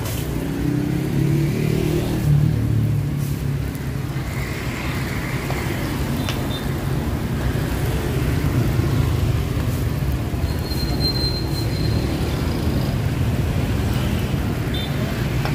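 Steady road-traffic rumble, with one engine passing close by in the first few seconds.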